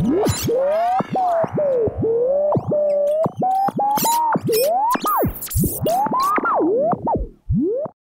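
An old radio being tuned across the dial: whistling tones that swoop up and down in pitch and break off abruptly, with short clicks and crackles between them. The sound drops out briefly near the end.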